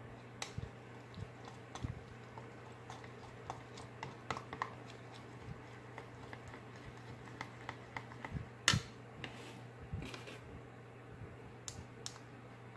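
Plastic spoon stirring a thick glue and baking soda slime mixture in a plastic bowl: scattered light clicks and taps of the spoon against the bowl, the sharpest about nine seconds in. A faint steady low hum runs underneath.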